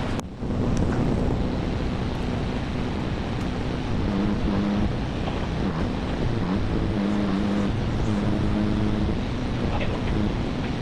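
Diesel engine of a Lull telehandler running under load, its note stepping up and down several times as the boom works to lift a welder.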